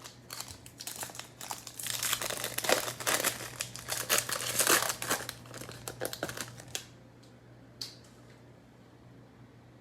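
A foil trading-card pack wrapper being torn open and crinkled by hand, a dense run of crackling that stops about seven seconds in, followed by one short click.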